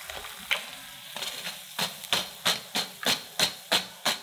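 Wire mesh skimmer full of deep-fried potato balls being shaken and tapped to drain off the oil. After a little faint sizzling from the pan, it gives a sharp, even tapping about three times a second from just under two seconds in.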